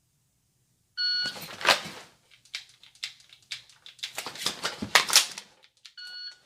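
Shot timer's start beep about a second in, then the rustle and clatter of a fast draw and movement with a run of sharp clicks and knocks from dry-firing a pistol and handling it. The same beep sounds again near the end.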